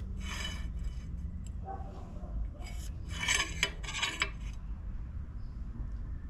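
Steel scriber scratching marking lines on a flat steel bar along a square: one stroke near the start, then several quick scratches about three to four seconds in.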